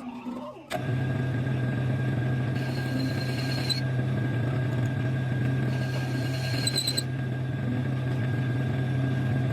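Mini lathe running steadily, starting suddenly about a second in. Twice a higher scraping hiss comes in for about a second as a tool rubs against the spinning workpiece to mark reference lines.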